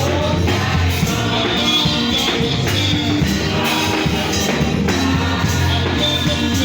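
Church praise music: singing over a band with a steady, loud bass and percussion.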